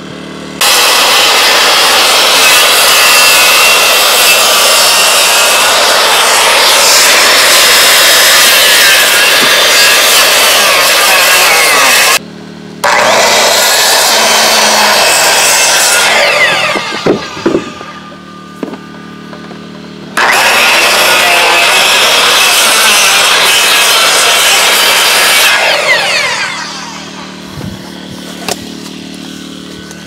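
Corded circular saw cutting through wood slab siding. A long cut of about twelve seconds is broken by a brief pause, then runs a few seconds more before the blade winds down. A few seconds later comes a second cut of about five seconds, which also winds down at the end.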